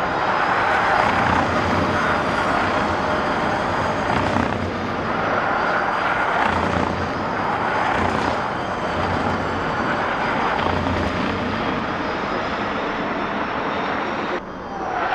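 A field of electric Mini Cooper SE-based race cars cornering and accelerating together, heard as a steady electric-motor whine over tyre noise rather than a combustion engine note.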